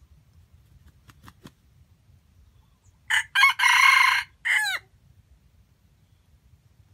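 Red junglefowl rooster crowing once, about three seconds in: a short crow of under two seconds, broken into several parts and ending in falling notes.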